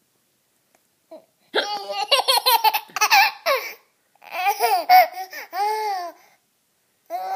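A woman's short hiccup about a second in, then a baby laughing at it in quick, high-pitched pulses, followed by two more laughing bursts.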